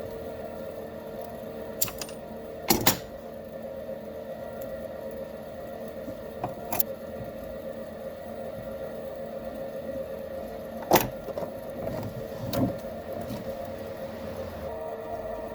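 A small electric motor or machine hums steadily at one pitch, with a few sharp knocks and clicks from work on metal parts, the loudest about eleven seconds in.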